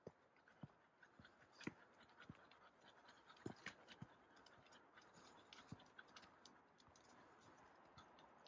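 Faint footsteps on a hiking trail: soft thuds about every half second, with small sharp clicks scattered among them, over a faint steady hiss.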